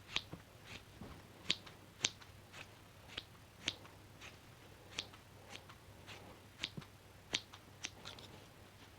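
Scissors snipping: a series of short, crisp cuts at an uneven pace of about two a second.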